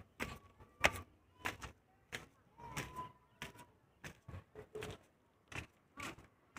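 Irregular sharp clicks and taps, two or three a second, with a faint thin tone heard briefly twice.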